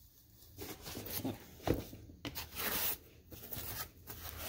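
Hands handling a cardboard shipping box, packing peanuts and a foam-lined case: a run of short scrapes and rustles.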